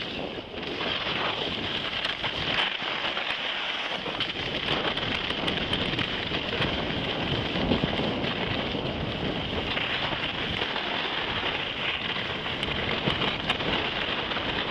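Skis hissing and scraping over hard-packed snow in a steady run downhill, with wind noise on the microphone.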